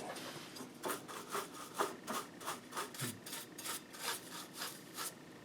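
Brush scrubbing the back of a circuit board, about three quick back-and-forth strokes a second, which stop near the end.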